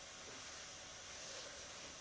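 Faint steady hiss from the recording, with a brief soft swell of noise a little past the middle.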